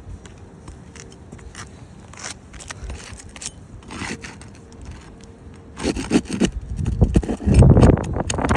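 Asphalt roof shingles being worked loose and a roofing nail being pried out: scattered clicks and scrapes, then louder, denser scraping and crunching of shingle grit from about six seconds in.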